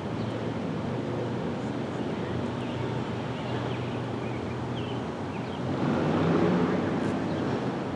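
Steady vehicle rumble with a low hum and some wind noise, swelling louder for about a second and a half around six seconds in.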